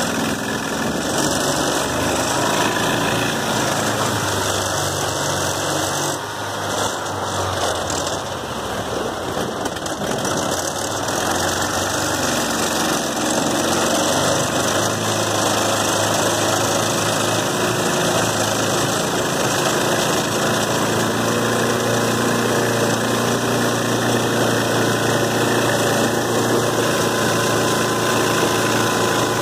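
Gasoline engine of a long-tail mud motor running steadily under way, pushing a jon boat at speed, mixed with wind and water noise.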